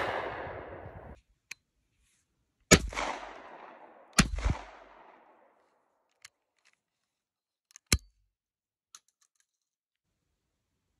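Two shots from a Stevens 555 E 20-gauge over/under shotgun about a second and a half apart, each followed by a short fading echo, after the echo of an earlier shot dies away. About eight seconds in comes a single sharp metallic clack as the break action is opened.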